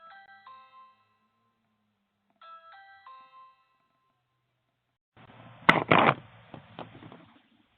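Electronic doorbell chime playing a short multi-note tune twice, about two and a half seconds apart. Later comes a couple of seconds of rustling with scattered clicks.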